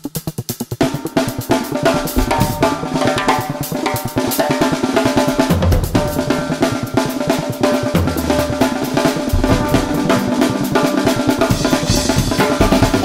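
Music driven by a drum kit, with rapid, dense snare and bass drum strokes and other instruments sustaining notes above.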